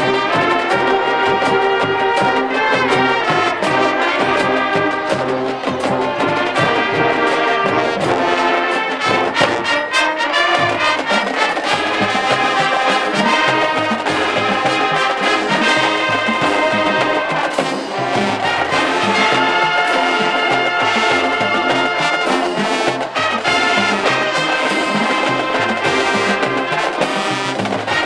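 Large high school marching band playing: the brass section holds loud chords over a steady drumline beat.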